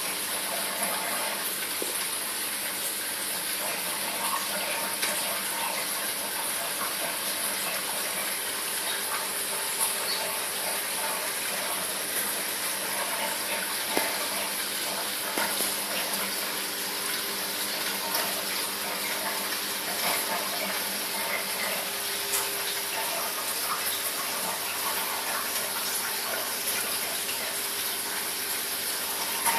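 Reef aquarium's circulating water running steadily, a constant rushing and trickling over a faint, steady pump hum.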